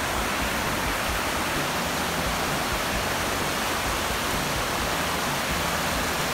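Mountain creek rushing over rocks in whitewater rapids: a steady, even rush of water.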